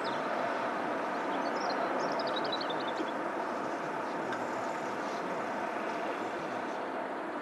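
Steady mechanical drone of harbour engines or machinery, with a quick descending run of high chirps between about one and a half and three seconds in.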